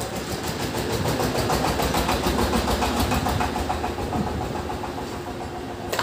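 An engine running steadily at a fast, even beat of about ten pulses a second.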